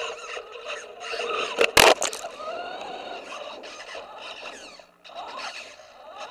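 Radio-controlled car driving on pavement: its motor whine rises and falls with speed over rattling chassis and tyre noise. There is one sharp, loud knock about two seconds in.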